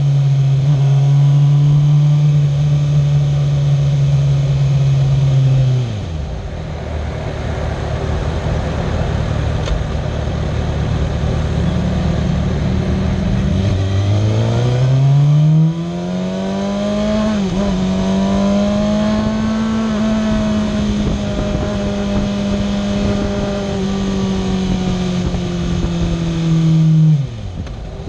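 Kawasaki ZX-6R 636 inline-four engine at steady revs. Its pitch falls sharply about six seconds in as the throttle closes and it sits at a low idle-like note. About halfway through it accelerates with a steeply rising pitch, dips briefly, holds a steady higher note, and falls off again near the end.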